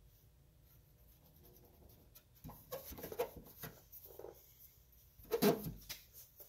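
Scattered scratching and rubbing handling noises from hands working on parts in a truck engine bay, with a louder rub about five and a half seconds in.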